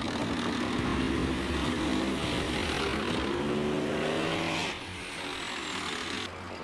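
A motor vehicle engine running and rising in pitch as it speeds up, cut off abruptly just under five seconds in, with quieter sound after.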